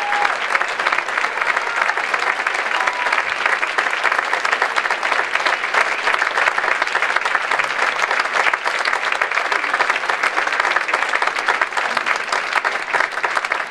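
Theatre audience applauding steadily, a dense even clapping.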